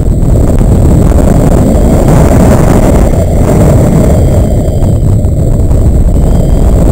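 Wind buffeting a paraglider's harness-mounted camera microphone in flight: a loud, heavy low rumble that jumps up right at the start and stays steady.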